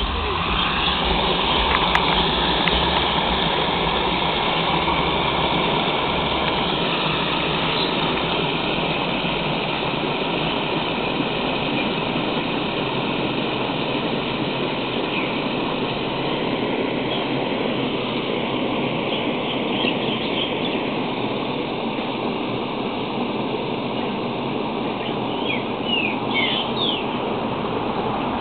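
Mueller Plus washing machine running through its wash, a steady rush of water and motor noise that eases slightly over time.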